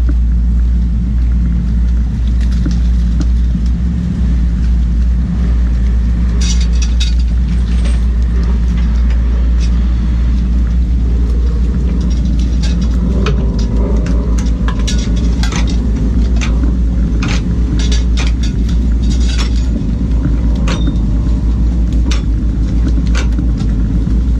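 Fishing boat's engine running steadily with a deep drone. From about six seconds in, scattered sharp clinks and knocks sound over it.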